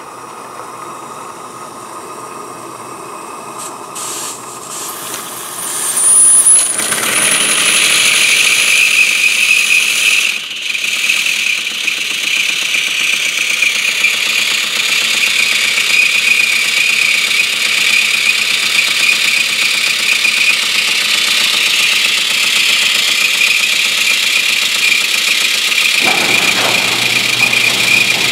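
16mm-scale live-steam Baldwin 2-6-0 Mogul running free on a bench test on steam from a stationary boiler: a steady hiss of steam with the drivers and valve gear running fast. It builds up after the throttle is opened and jumps to full running about six seconds in, with a thin high squeal for a few seconds as it gets going.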